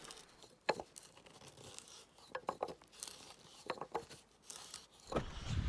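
Hand auger's spiral bit boring into a log by hand, the wood crackling and creaking in irregular short bursts as the bit cuts, with a sharp crack under a second in.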